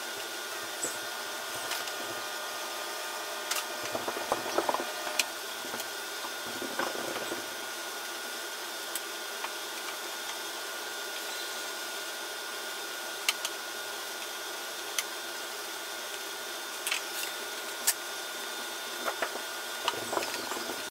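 Scattered light clicks, knocks and short rattles of a hand screwdriver and small hinge screws as the hinges are screwed onto a wooden pine cabinet, with a clump of handling knocks near the end as the cabinet is moved. Under it runs a steady background hum.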